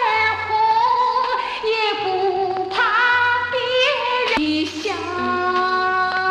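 Mandarin pop song played from a Life Records LP: a woman singing long, wavering held notes with gliding pitch over a band accompaniment. A single sharp click sounds about four and a half seconds in, followed by a long steady held note.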